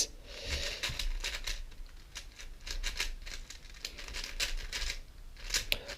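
GAN 4x4 speedcube being turned by hand: a quick, irregular run of plastic clicks and clacks as its layers are twisted. The inner-layer turns catch and lock up on almost every move.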